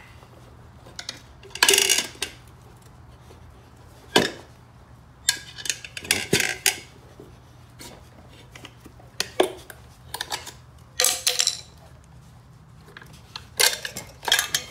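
Steel tire spoons clinking and scraping against a pit bike's spoked steel rim, with the rubber bead rubbing, in irregular separate bursts as the tire is levered off the rim.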